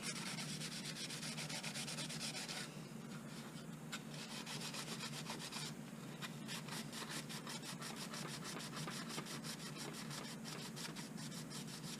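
Green scouring pad scrubbing a soapy plastic light bar lens: a steady run of rapid back-and-forth rubbing strokes, scouring dirt off the discoloured lens.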